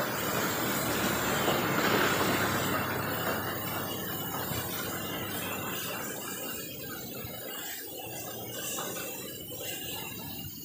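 Pressure washer jet spraying water as a steady hiss, loudest in the first few seconds and easing off after about six seconds.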